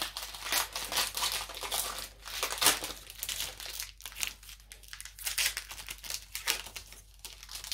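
Foil booster-pack wrapper crinkling in the hands, a run of irregular crackles and rustles, along with trading cards being handled and set down.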